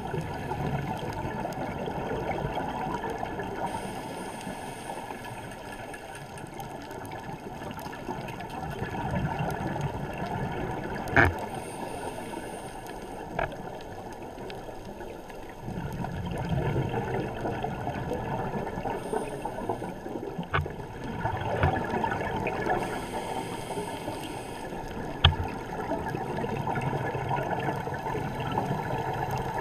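Muffled underwater sound recorded through a camera housing: a scuba diver's breathing through the regulator, with swells of bubbling rumble every several seconds and short hisses between them. A few sharp clicks stand out.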